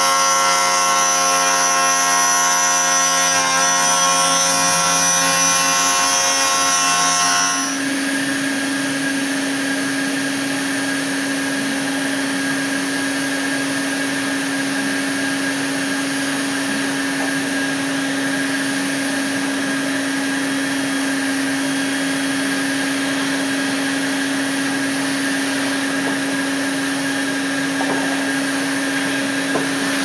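A CNC router's spindle whining steadily as it mills wood, with chip extraction running. About seven and a half seconds in, this changes abruptly to a shop vacuum alone, running with a steady hum as it pulls dust through a Dust Deputy cyclone separator.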